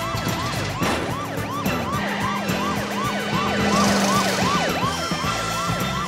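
Police car siren in rapid yelp mode: a quick rising-and-falling wail repeating about three times a second, over the hum of the chase vehicles.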